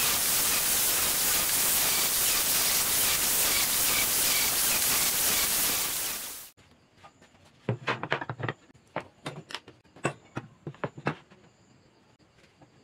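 An angle grinder fitted with a sanding pad runs against wood strips as a loud, steady hiss that cuts off abruptly about six and a half seconds in. Then a scattered run of sharp clicks and knocks as tools are handled on a wooden tabletop.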